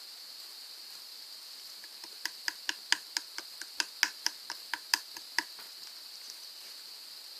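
Slime being pressed and squished by hand, giving a quick run of sharp popping clicks (about fifteen over three seconds, mid-way through) over a steady hiss.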